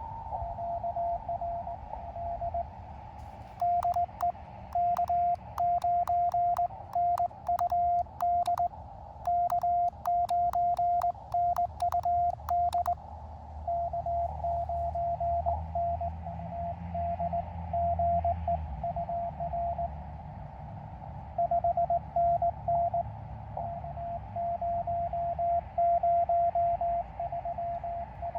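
Morse code from an Elecraft KX2 transceiver: a tone of about 700 Hz keyed on and off over the hiss of a narrow CW filter. From about 3 to 13 seconds in, the operator sends on a cootie (sideswiper) key, heard as a louder sidetone with the clicks of the paddle levers. Before and after that, a weaker station's Morse comes in through the receiver.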